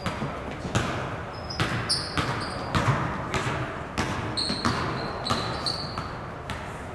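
Basketball dribbled on a gym floor, a string of irregular bounces, with short high squeaks of sneakers on the court in between.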